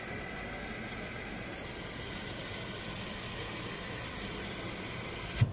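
Coca-Cola Freestyle fountain machine dispensing soda onto ice in a paper cup: a steady rush of pouring, fizzing liquid. It stops suddenly near the end with a short thump.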